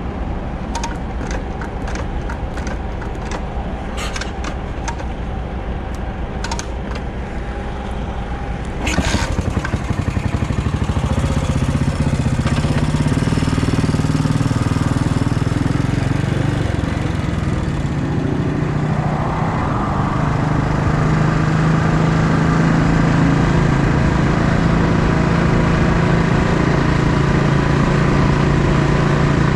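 Yamaha SR500 single-cylinder motorcycle engine: a few scattered clicks first, then the engine comes in with a sudden jump about a third of the way in and runs. From about two-thirds in it settles into a steady, loud engine note as the bike rides along.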